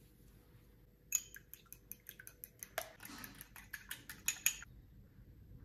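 A fork beating egg for an egg wash in a small ceramic bowl: a quick run of metal-on-ceramic clinks, about six a second. It starts about a second in and stops about a second before the end.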